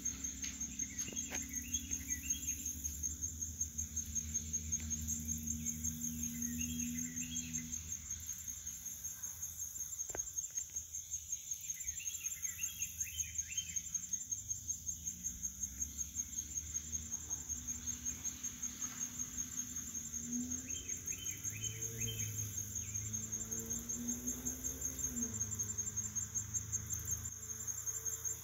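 Insects calling in a steady, high-pitched chorus with an even rhythmic pulse. A few short bursts of bird chirps come and go over a low hum.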